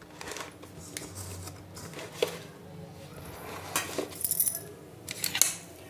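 Glass pickle jar and steel bowl being handled on a counter: a scatter of light clinks and knocks, with a quick cluster about four seconds in and a few more past five.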